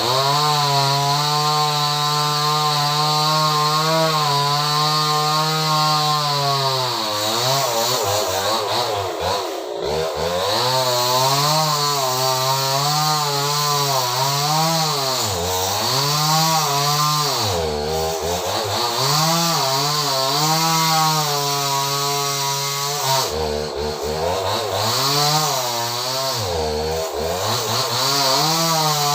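Small two-stroke chainsaw cutting through a very large tree trunk at full throttle. It runs steadily at first, then from about seven seconds in its engine note keeps dropping and recovering as the chain bogs down in the cut.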